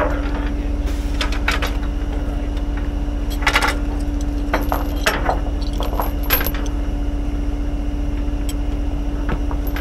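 Steel tow chain rattling and clinking in several short bursts as it is handled on a wooden trailer deck, over the steady hum of an idling truck engine.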